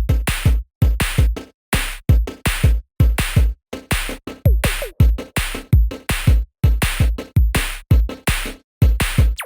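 Electronic background music with a punchy drum-machine beat and deep bass kicks.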